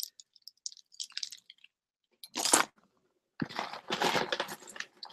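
Costume jewelry clicking and rattling as it is handled and rummaged through in a jar. There are a few light clicks, then a short rustle about two and a half seconds in, then a longer spell of clattering about a second later.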